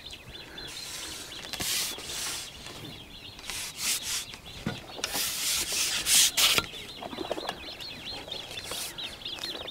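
Irregular rubbing and rustling close to the microphone in several bursts, loudest around the middle, over steady birdsong chirping in the background.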